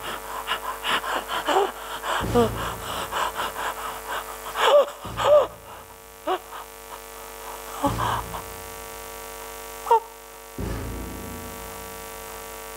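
A man's voice gasping in quick short breaths for about five seconds, then a few short wordless cries that rise and fall in pitch, a few seconds apart, over a steady hum.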